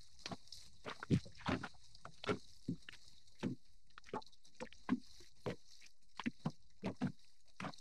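Small waves lapping against a boat hull, giving faint, irregular hollow slaps and knocks about twice a second.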